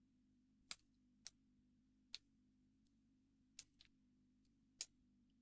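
Faint, sharp clicks of lock-picking tools working the pins of an Abus 76/40 padlock: about six at uneven intervals, two close together near the middle.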